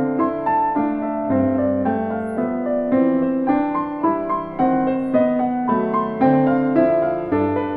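Digital pianos playing a simple children's tune in duet, note by note at an even, moderate pace; a longer note is held near the end.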